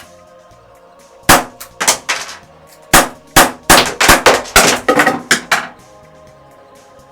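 Marushin Colt Government model gun firing paper caps: a quick run of about a dozen sharp cracks, some in close pairs, starting a little over a second in and ending about two-thirds of the way through.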